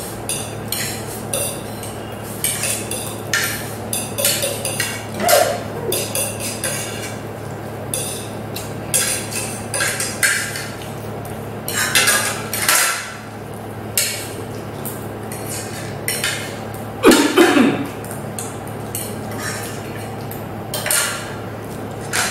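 Forks clinking and scraping against plates as two people eat noodles, many short, sharp clicks throughout. A louder sound comes about three-quarters of the way through.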